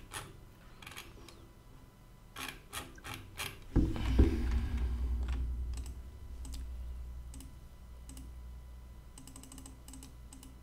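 Computer keyboard and mouse clicking: scattered clicks and short quick runs of clicks. About four seconds in there is a louder thump, followed by a low rumble that fades over the next couple of seconds.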